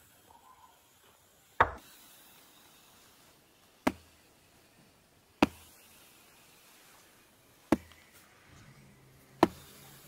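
Five sharp, single cracks, each followed by a short fade, about one and a half to two and a half seconds apart.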